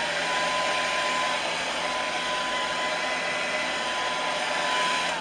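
Hair dryer blowing on high, a steady rush of air with a steady motor whine, drying fresh airbrushed paint on a crankbait; it is switched off after about five seconds.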